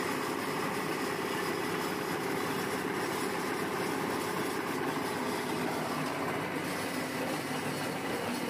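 Hydraulic leaf-spring bending press running steadily on its drive unit, a constant mechanical hum with no knocks or bangs as a leaf spring is pressed.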